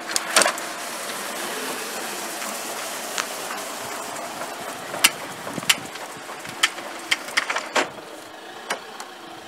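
Motorhome roll-out awning being wound in with a hand crank rod: a steady whirring rush from the turning crank and rolling awning, with a handful of sharp clicks and knocks from the crank mechanism.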